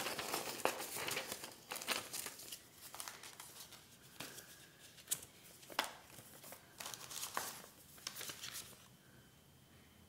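Paper and plastic packaging being handled, crinkling and rustling in a run of uneven sharp crackles that stops about nine seconds in.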